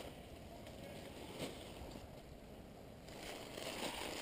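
Faint rustling of dry leaf litter and clothing as a player shifts on the forest floor, with a small click about a second and a half in and a slightly louder rustle near the end.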